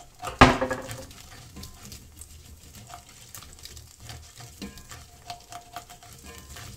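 Utensil scraping and knocking in a cast iron skillet as oil is stirred through the browned bits, with one sharp clank about half a second in, followed by lighter scrapes and taps.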